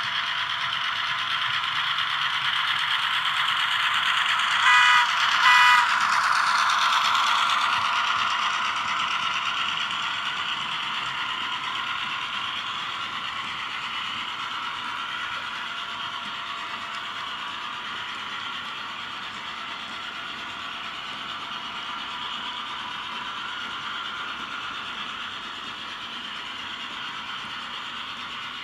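HO scale model train, locomotive T370 with a mixed freight, running along the track with a steady mechanical rattle of wheels and mechanism. It grows louder as it passes, about six seconds in, then slowly fades. Two short, louder rattling bursts come about five seconds in.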